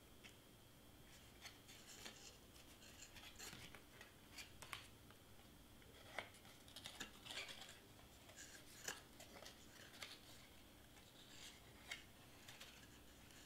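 Faint handling of cardstock: scattered light clicks, rubs and crinkles as paper tabs are folded and pressed into place, with a few sharper clicks along the way.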